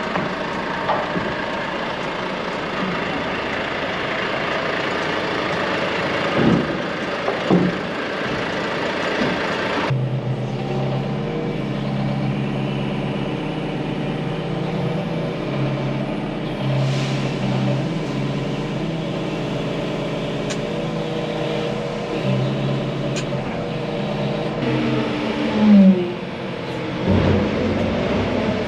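A large vehicle engine runs steadily. About ten seconds in, the sound changes abruptly to a lower, steadier engine hum with a clear pitch, and a few short knocks come near the end.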